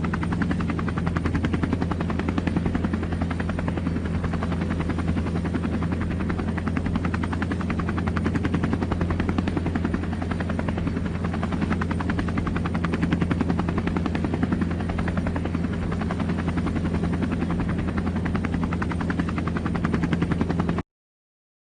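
Air ambulance helicopter running steadily, its rotor making a fast, even blade chop over the engine drone. It cuts off abruptly near the end.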